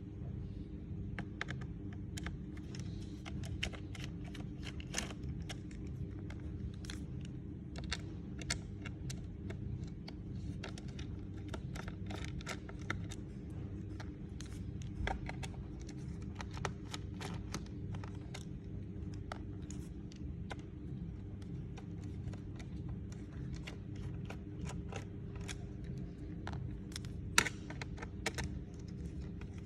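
Irregular light clicks and scrapes of small laptop parts being handled during disassembly, over a steady low hum, with one sharper click near the end.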